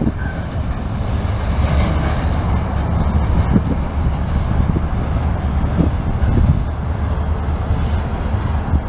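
Freight train of covered hopper cars rolling away through a grade crossing: a steady rumble of steel wheels on rail with a few knocks.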